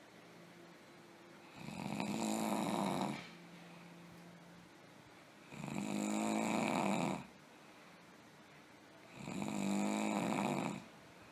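A person snoring: three loud snores, each about a second and a half long and roughly four seconds apart, with quiet stretches between.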